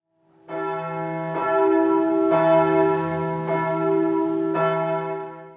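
Bell struck five times, about a second apart, each strike ringing on into the next and the whole dying away near the end.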